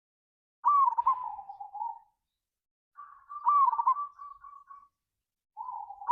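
Zebra dove (perkutut) cooing: three separate warbling coo phrases, each opening on a sharp rising note and then rolling on in quick notes, the third starting near the end.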